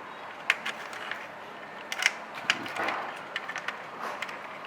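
Scattered light clicks and taps of small RC tank chassis parts being handled and fitted by hand.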